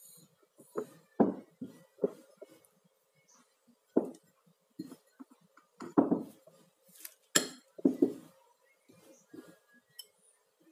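Kitchen utensils and dishes clinking and knocking at irregular intervals, over a faint steady hum.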